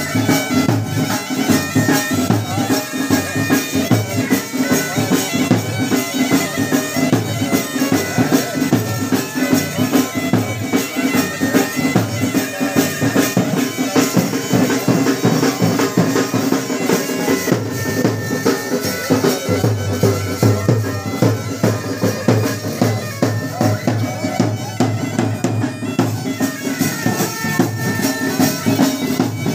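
Loud folk wedding music that runs without a break: a reedy wind instrument over a steady drone, with a fast drum beat.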